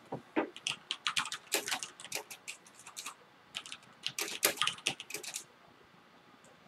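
Typing on a computer keyboard: a quick, uneven run of key clicks that stops about a second before the end.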